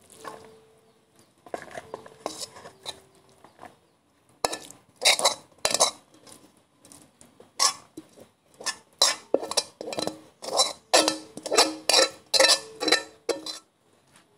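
Utensil scraping and knocking against a wok as fried noodles are scraped out into a container: a few soft scrapes, then from about four seconds in a quick run of sharp scrapes and clinks, one or two a second, stopping just before the end.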